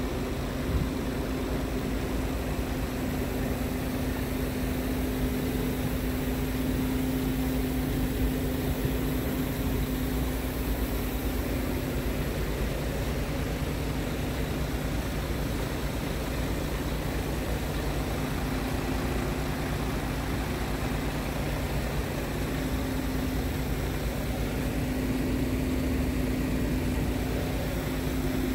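Scania R truck's diesel engine idling steadily.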